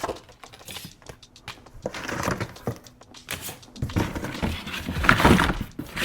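Bicycle parts and packaging being handled while they are taken out of a box: scattered light clicks and rustling, busier near the end.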